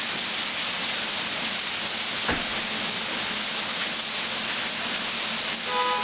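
Heavy rain falling steadily on standing floodwater and pavement, an even hiss. There is a single sharp knock about two seconds in and a brief pitched tone near the end.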